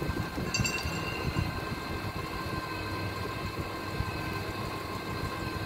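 Propane-powered Hyundai forklift engine idling steadily, with a light clink about half a second in.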